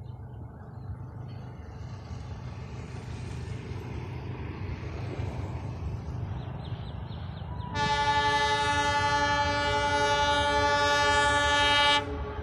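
Sri Lanka Railways diesel locomotive approaching, its running rumble growing slowly louder, then sounding its horn in one long blast of about four seconds that cuts off sharply.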